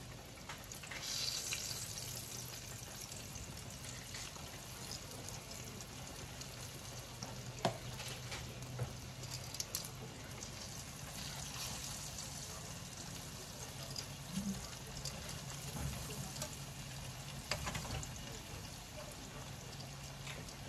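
Breaded chicken breast pieces frying in a pan of hot oil: a steady sizzle that swells about a second in as another coated piece is laid in. A few sharp clicks of tongs and chopsticks against the pan, over a low steady hum.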